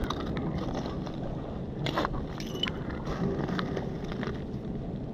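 Wind and river water noise on the foreshore, with a handful of sharp clicks and knocks scattered from about two seconds in.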